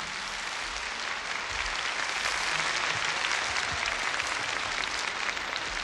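A studio audience applauding after a song, a dense, steady clapping that swells slightly after the first second and holds.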